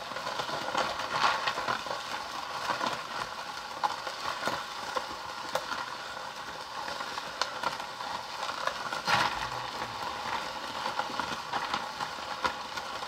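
Toy ice cream maker being turned by hand: a steady, irregular crunching crackle from the half-frozen mix inside, which has gone crispy.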